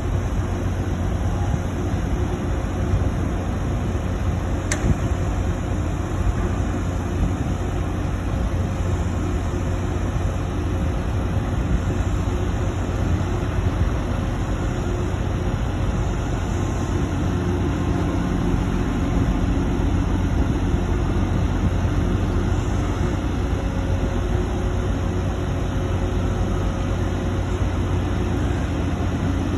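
Heavy machinery running with a steady low diesel rumble, and one sharp click about five seconds in.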